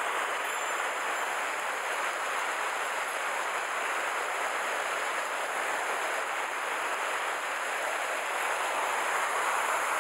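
Steady rush of stream water pouring over a small concrete weir, an even hiss with no breaks.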